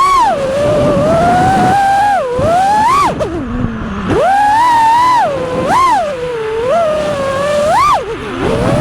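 FPV freestyle quadcopter's brushless motors and propellers whining as the throttle is worked through acrobatics. The pitch swings up and down constantly, with sharp upward punches about a second in, near three seconds, twice around five to six seconds and just before the end.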